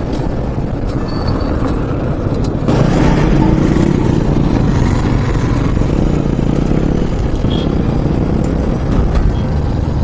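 Yamaha FZ V2 motorcycle's 150 cc single-cylinder engine running on the move, with steady road noise. It gets louder about three seconds in.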